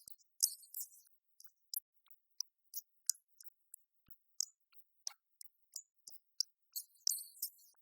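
Scattered, irregular high-pitched clicks and crackles, some in quick clusters, with no steady sound beneath them.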